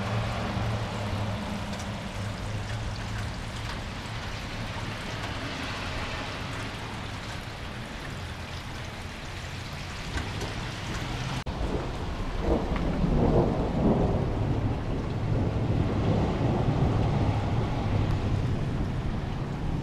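Steady rain hissing down on wet pavement and roofs. A little past halfway a deep rumble of thunder swells up and rolls on to the end.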